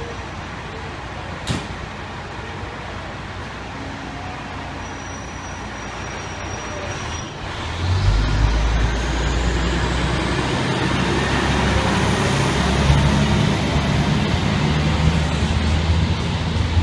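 Diesel engine of an FDNY fire truck pulling away, its low rumble swelling about eight seconds in, with a whine climbing steadily in pitch over the following seconds above steady street noise.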